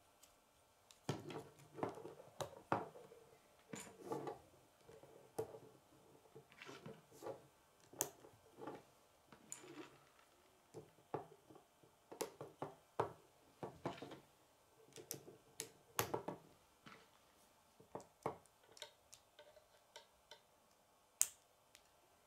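K'nex plastic rods and connectors being handled and snapped together: irregular plastic clicks and light knocks, a few of them sharper snaps.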